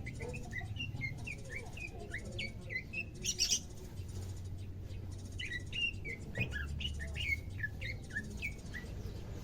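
Caged leafbird (cucak ijo) calling in two runs of quick, short chirping notes, with a brief harsher rasp between them about a third of the way in. The bird is newly kept and just beginning to call actively.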